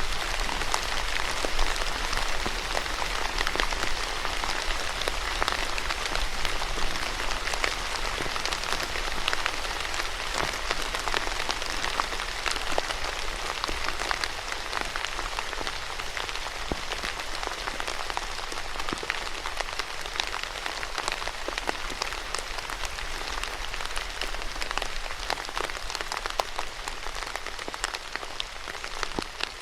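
Steady rain falling on a surface, an even hiss with many separate drops ticking through it.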